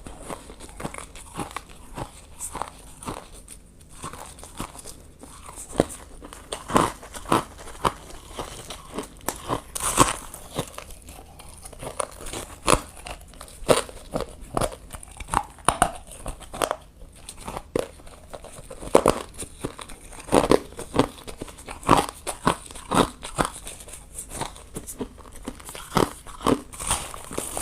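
Close-up bites into ice, one after another at an irregular pace, each a sharp squeaky crunch.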